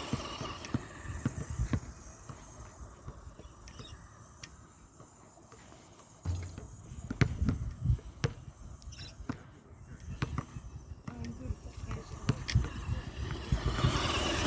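Stock brushed electric motor of a Blackzon Smyter MT RC monster truck running as it drives over grass, with scattered knocks and thumps from the truck bouncing over the ground. The sound grows louder about six seconds in and again near the end.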